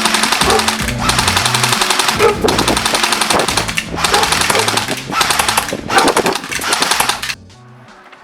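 Airsoft AK-47 rifle firing on full auto in long, rapid bursts with brief pauses between them, stopping abruptly about seven seconds in.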